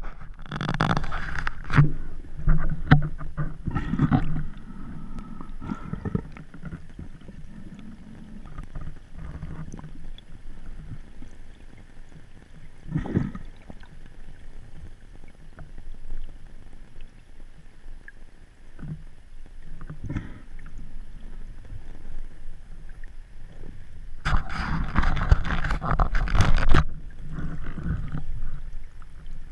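Water sloshing and bubbling picked up by a GoPro in its waterproof housing while it is moved through shallow sea water by a snorkelling diver. It is a low, dull wash with louder rushes now and then: several in the first few seconds, one about 13 seconds in, and a longer loud stretch about 24 to 27 seconds in.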